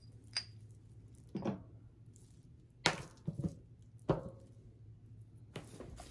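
A handful of light knocks and clacks as small tools and parts are handled and set down on a plastic-covered craft table: a drawer pull is put down and tin snips are picked up. The sharpest knocks come about three and four seconds in.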